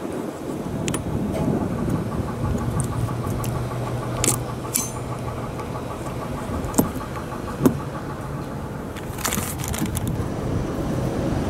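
Plastic parts of a wiper blade and wiper-arm hook being handled and slid together, with two sharp clicks about seven seconds in as the blade locks onto the hook, over a steady low hum.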